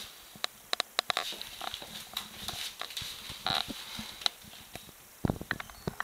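Prairie dog's claws clicking and pattering on a tiled floor as it scampers about, an irregular run of sharp ticks with a louder cluster about five seconds in.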